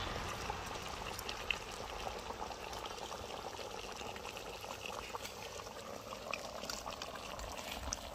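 Fish gravy bubbling at a hard boil in a pot over a charcoal stove, a steady hiss with scattered light clicks as a metal ladle stirs it. The gravy is boiling down fast.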